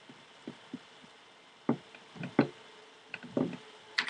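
Irregular small clicks and knocks of the Tippmann X7 Phenom paintball marker's parts being handled and fitted back together, with a sharper, louder click near the end.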